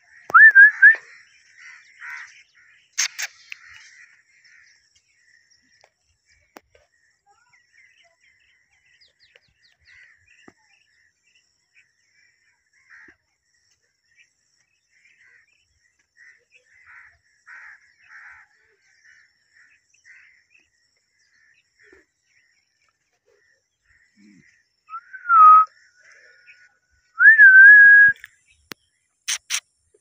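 Blue Indian ringneck parakeet whistling: a loud whistle about a second in that rises and then holds, faint soft chirps through the middle, and two more loud whistles near the end, the first dipping and the last rising and then held.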